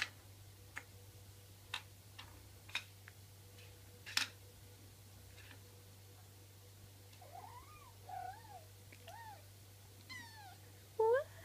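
Plastic bottle cap clicking and clattering on the floor in a handful of sharp separate taps as a Himalayan kitten bats it about. From about seven seconds the kitten gives short chirping meows that rise and fall in pitch, coming faster and louder near the end.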